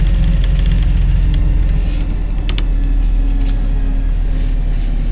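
MAZ-203 city bus heard from inside the passenger cabin while driving: a steady low engine and road rumble, with light clicking rattles from the bodywork in the first half.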